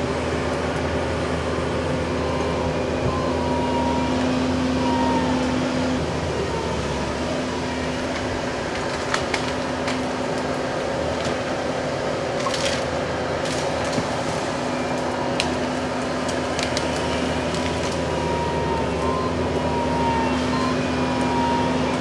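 Bobcat T770 compact track loader's diesel engine running steadily under load as it works a hydraulic tree-puller claw. Several sharp cracks and snaps of wood and roots breaking come in the middle stretch.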